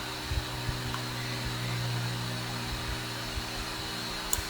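Steady low electrical hum with an even fan-like hiss, with a few faint clicks near the end.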